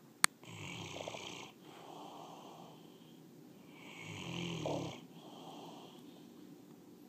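Bullmastiff snoring in its sleep: two loud snores about three seconds apart, the second the louder, each followed by a softer, longer breath. A single sharp click sounds just before the first snore.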